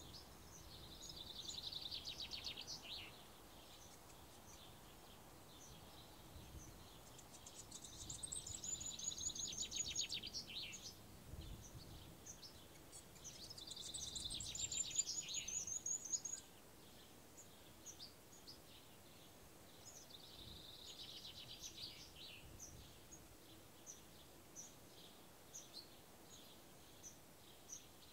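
A songbird singing four trilled phrases, one every five or six seconds, some ending in a high falling whistle, with faint short chirps between them.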